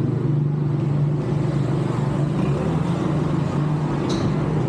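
Street traffic ambience dominated by a steady low engine hum, with a brief sharp click about four seconds in.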